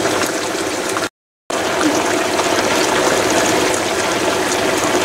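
Olive oil sizzling in a frying pan, with a dense hiss and small crackles: chunks of salt cod frying, then, after a brief dropout about a second in, sliced potatoes and onion cooking in the oil.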